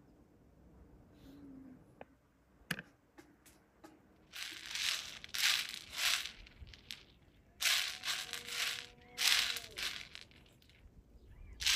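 Several bursts of rustling and crinkling, like plastic or a cloth being handled, beginning about four seconds in after a few soft clicks.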